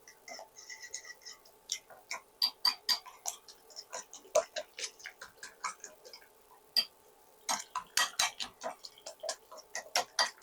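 Egg wash being beaten in a bowl with a utensil: quick, irregular clicks of the utensil striking the bowl, several a second, with a short pause a little past the middle.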